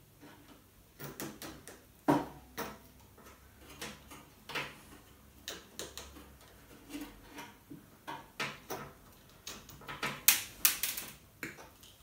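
Scattered clicks and small rattles of hands working a microwave oven's control circuit board and its wiring loose from the chassis, with a quick run of sharper clicks about ten seconds in.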